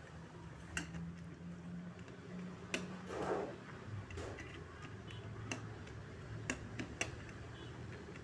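A perforated metal spatula knocking against a stainless-steel pot while stirring fish heads in broth: scattered sharp, irregular clicks over a faint steady low hum.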